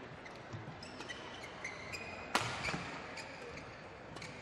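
Badminton rally: rackets striking the shuttlecock in sharp cracks, the loudest a little past halfway, with short high squeaks of shoes on the court.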